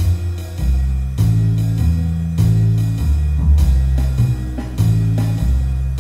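Medium-swing jazz backing track of drum kit and walking bass at 100 bpm in F, the bass moving to a new note about once a beat.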